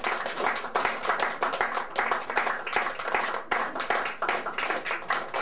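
Applause from the guests: many hands clapping, a dense steady run of claps.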